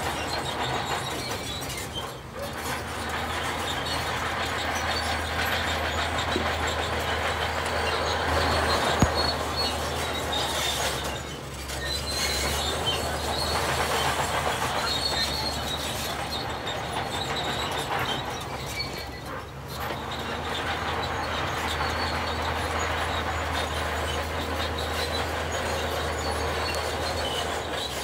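Heavy diesel construction machinery running continuously over a steady low hum, its loudness dipping briefly every several seconds.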